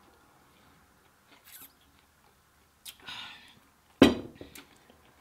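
A few small clicks and a short rustle, then a sharp knock about four seconds in, followed by a couple of lighter clicks.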